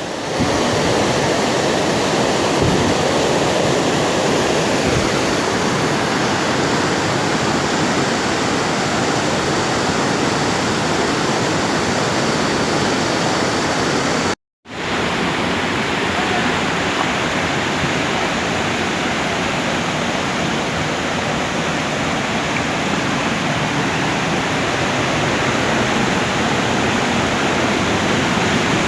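Fast-flowing river water rushing steadily. It breaks off for a moment about halfway through.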